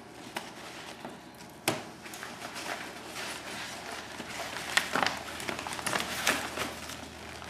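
Handling noise of wire and paper being worked: a sharp click a little under two seconds in, then a run of clicks and rustling around the middle and toward the end.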